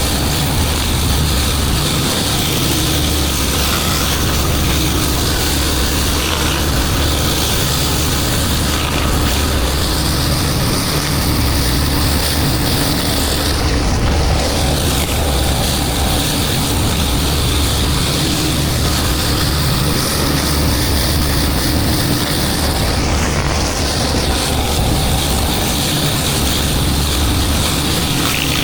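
Gas-engine pressure washer running steadily with the hiss of its high-pressure water spray. The spray hiss drops out briefly twice.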